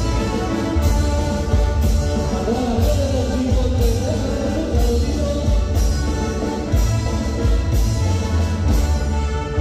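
Band music from a regional Mexican group: a steady beat of evenly spaced drum strikes over heavy bass, with a wavering melody line in the middle.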